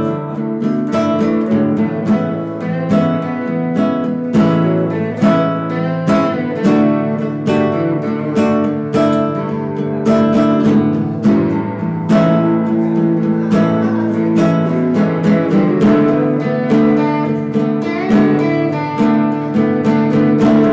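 Instrumental band music led by strummed acoustic guitar, with a steady rhythm of sharp strokes and no singing.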